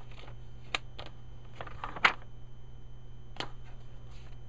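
Pages of a thick paper instruction booklet being turned and handled, with a few short paper flicks and taps, the loudest about two seconds in. A steady low hum sits underneath.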